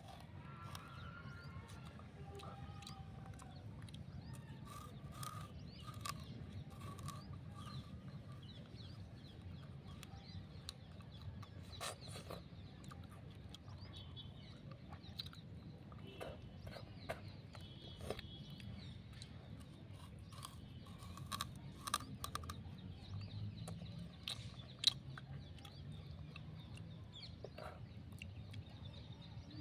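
Birds calling in the background, short chirps and clucks, with many scattered sharp clicks and cracks, the loudest about 25 seconds in, over a low steady hum.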